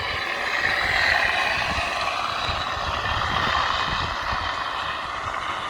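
Radio-controlled P-47 model plane's onboard speaker playing a simulated piston aircraft engine sound, running steadily with a slight rise and fall in pitch. Wind rumbles on the microphone.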